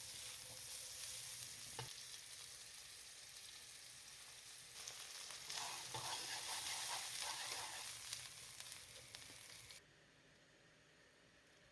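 Food sizzling in a hot frying pan as it is stirred, with a few knocks and scrapes of the utensil against the pan. The sizzle cuts off abruptly near the end.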